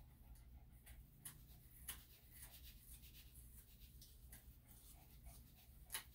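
Faint, scratchy strokes of a comb pulled through a dog's long, matted ear hair, about two strokes a second, with sharper ones about two seconds in and near the end.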